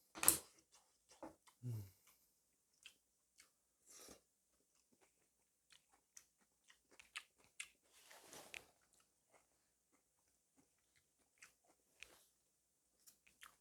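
A person chewing and biting food close to the microphone: scattered soft mouth clicks and smacks with a few crunchy bites, the loudest just after the start.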